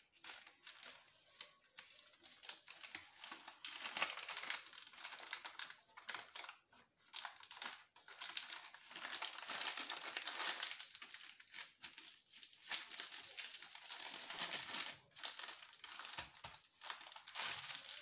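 Sheets of baking paper rustling and crinkling as hands fold and press them around a log of cookie dough. The rustling comes and goes, busier from about four seconds in.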